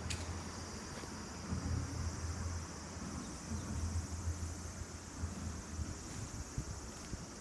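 Steady, high-pitched chirring of insects, an even chorus with a fine rapid pulse. Under it runs an uneven low rumble, and a single sharp click sounds right at the start.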